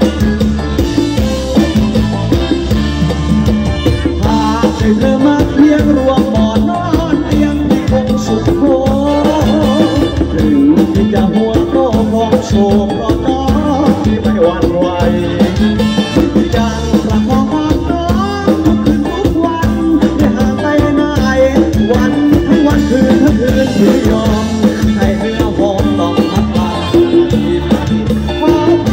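Thai ramwong dance song played live and loud by a band with drum kit and percussion, a man singing the melody into a microphone over the PA.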